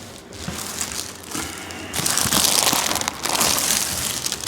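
Crinkling and rustling of a person shifting on a chiropractic adjusting table, faint at first and much louder in the second half.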